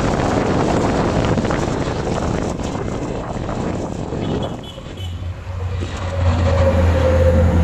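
Wind rushing over the microphone of a moving vehicle, fading out about four and a half seconds in as it slows. A steady low engine hum then takes over.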